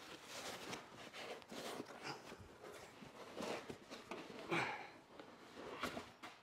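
Handling noise from unpacking a heavy amplifier: foam packing blocks rubbing and scraping and a cloth dust bag rustling as the unit is pulled free of its box, in short irregular scuffs.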